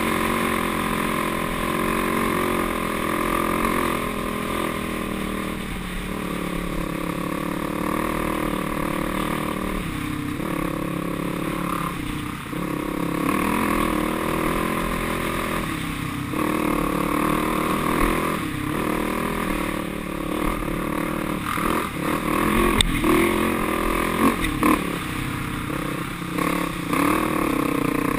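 ATV engine running under throttle, its pitch rising and falling as the throttle is opened and eased off, dropping briefly several times. A few sharp knocks and clatter from the machine over the rough trail near the end.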